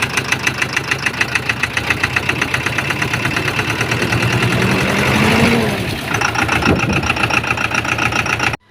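Massey Ferguson 460 Xtra's Perkins 1104 four-cylinder diesel engine running with a rapid, even knocking, the engine knock it is being diagnosed for. About five seconds in the pitch rises briefly and falls back.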